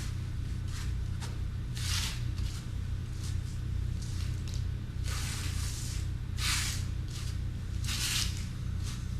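Hand tool spreading wet Redgard waterproofing mixed with sand aggregate over fiberglass cloth: several short, wet scraping swishes, over a steady low hum.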